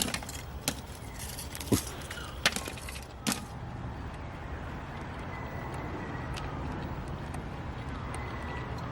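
Lumps of freshly made charcoal clinking as they are handled: about five sharp clicks in the first three seconds, then only a steady low background hum.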